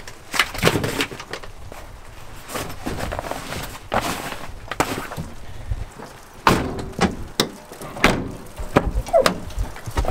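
A string of separate knocks and clunks: gear being moved about in the cargo bay of a Volkswagen T5 van and the van's doors being shut.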